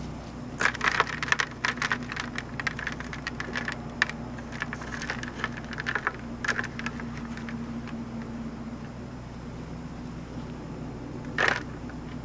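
Hands scraping and pushing loose clay soil into the gap around a buried plastic bucket: a run of gritty, crackling scrapes and pats for several seconds, then one more scrape near the end. A steady low hum sits underneath.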